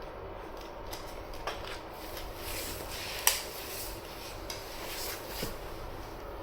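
Light clatter of dishes and cutlery over a steady background hum, with one sharp clink about three seconds in.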